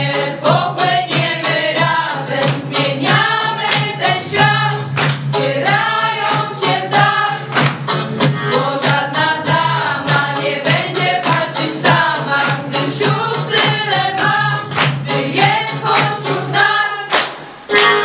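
A small vocal ensemble of young singers singing a song in Polish, several voices together, over a steady low sustained accompaniment note and regular sharp beats.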